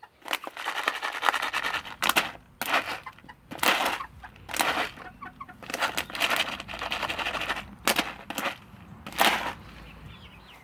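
Hens clucking, with repeated sharp knocks and stretches of rattling, scraping noise in between.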